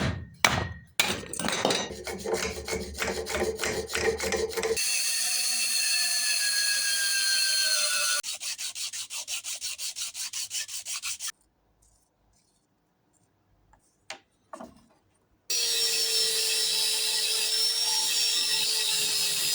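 Rhythmic hand-tool strokes sawing or filing wood and steel for a knife's oak handle, cut together with stretches of a power tool running steadily. A brief near-silent pause holds a couple of knocks.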